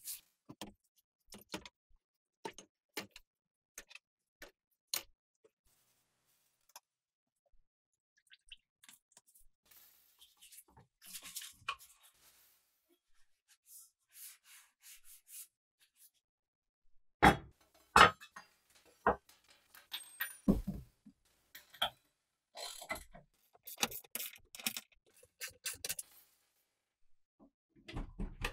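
Scattered clicks, taps and knocks of rusty metal bike-pump parts being handled and brushed over a plastic tub, with a few louder knocks about two-thirds of the way through. A short cluster of clicks near the end as a plug is pushed into a wall socket.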